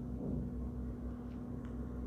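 Steady low electrical hum and rumble of background noise. About a quarter second in there is a soft handling sound as the phone is moved and laid down on a cloth mat, and a couple of faint light ticks follow in the second half.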